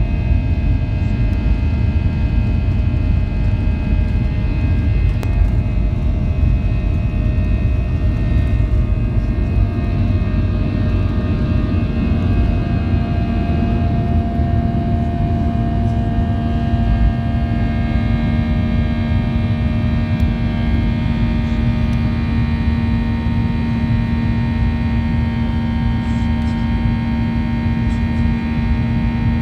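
Cabin noise of a Boeing 737-800 on takeoff: its two CFM56-7B engines at takeoff thrust give a loud, steady drone over a heavy rumble from the wheels on the runway. About halfway through, steady engine tones come up more clearly, and the rumble eases once the jet is airborne.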